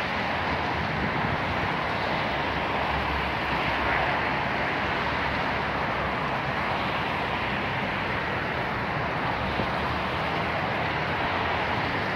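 Steady, even rushing outdoor ambience by a city river, with no distinct events.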